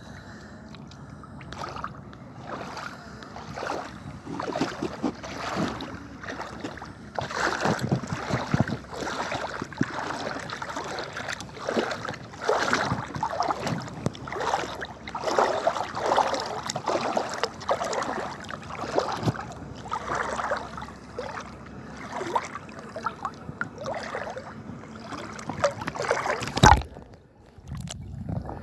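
Seawater splashing and sloshing in irregular surges, as of someone wading through shallow water. A single sharp knock near the end.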